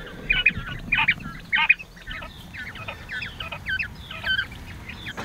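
Young coturnix quail calling: a run of short high chirps from several birds, about three a second, stopping about four and a half seconds in.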